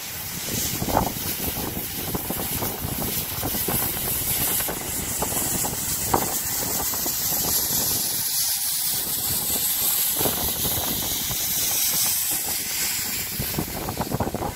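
LMS Royal Scot class 46100 steam locomotive moving slowly past, with a steady hiss of steam and a few metallic knocks.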